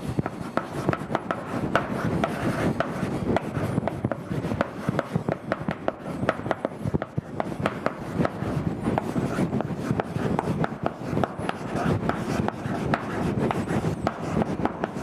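Chalk writing on a blackboard: a rapid, uneven run of scratches and taps as the chalk forms the letters.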